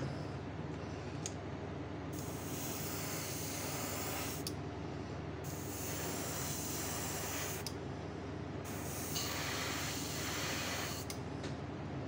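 Airbrush spraying paint onto a fishing lure: three hissing bursts of about two and a half seconds each, each cut off sharply, over a steady low hum.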